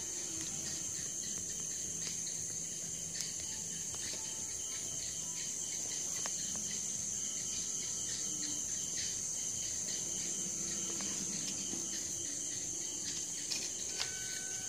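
A steady high-pitched chirring drone, with faint scattered ticks.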